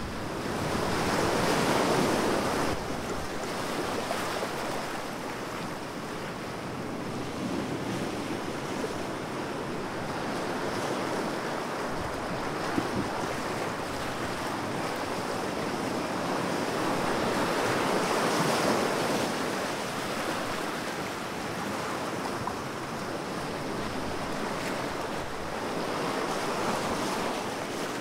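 Ocean waves washing in and drawing back, a steady wash that surges louder about two seconds in, again past the middle, and once more near the end.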